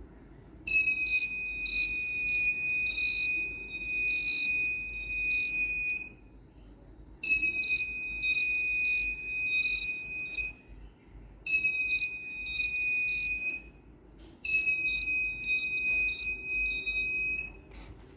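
The buzzer of a DIY LDR burglar alarm, driven by a D882 transistor, sounding a shrill steady tone that pulses about twice a second. It comes in four bursts of two to five seconds each, which start and stop abruptly.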